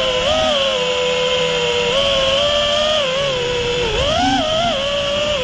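6S FPV racing quadcopter's brushless motors and Ethix Watermelon props whining, the pitch rising and falling with the throttle. The pitch climbs sharply about four seconds in as the quad punches and banks, over a low rush of wind across the onboard GoPro's microphone.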